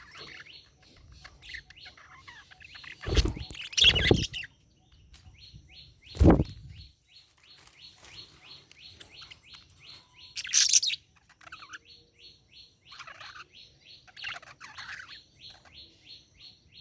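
Budgerigar chirping and chattering: a fast, even run of short chirps, about six a second through the middle, with a few louder sharp calls, the loudest about six seconds in.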